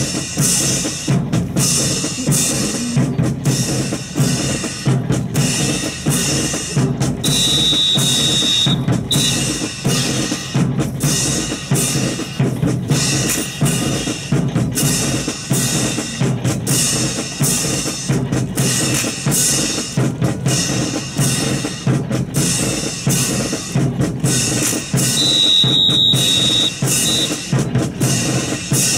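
Drum cadence of snare and bass drum beating a steady marching rhythm. Twice a high steady tone, like a whistle blast, sounds over it for about a second and a half.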